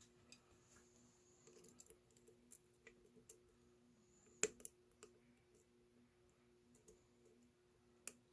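Faint, irregular small metallic clicks and scrapes of a lock pick and tension wrench working the pins inside a solid brass padlock, with one sharper click about four and a half seconds in.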